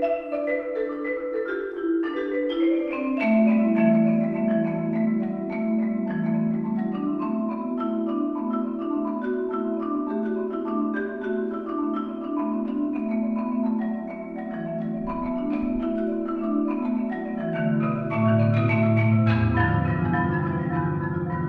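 Marimba quartet playing fast interlocking hocket patterns of mallet notes. Lower notes join a few seconds in, and deep bass notes come in near the end.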